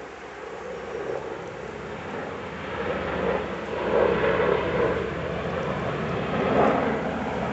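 AgustaWestland Merlin military helicopter flying low overhead, its rotor and engine noise building up. It is loudest about four seconds in and again near the end.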